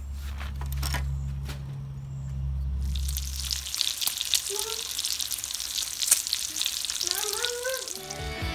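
Bacon frying in a cast-iron skillet: a dense crackling sizzle that starts about three seconds in, after a low steady rumble.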